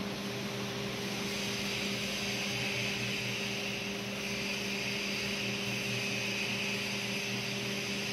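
CNC milling machine cutting the surface of a Kaplan turbine runner blade: a steady machine hum with an even hiss from the cut over it, a little stronger from about a second in.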